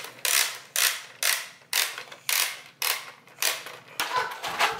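Plastic toy crane truck's hand-cranked winch being wound, giving a rasping creak with each turn of the crank, about two a second.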